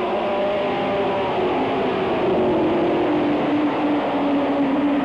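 A pack of Late Model stock cars' V8 engines racing together, several engine notes at once, their pitch easing and climbing as the cars work through the turns.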